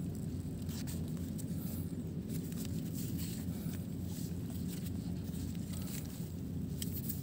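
Quiet outdoor background: a steady low rumble with faint scattered ticks, and no firecracker goes off.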